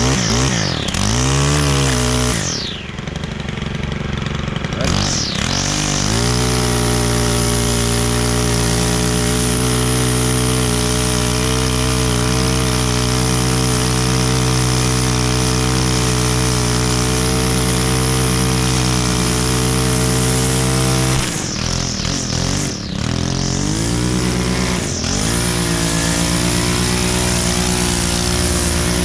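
Stihl FS 131 R string trimmer's 4-MIX engine throttled up and down at first, then held at high revs for about fifteen seconds. About three-quarters through it eases off and picks up again a few times before settling at a steady high speed.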